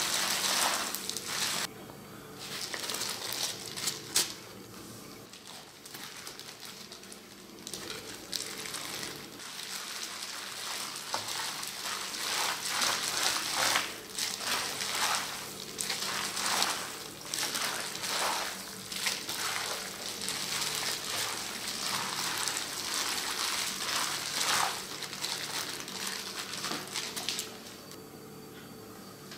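A plastic-gloved hand mixing noodles, raw fish slices and vegetables in spicy red sauce in a stainless steel bowl: irregular wet squelching and rustling strokes that die down shortly before the end.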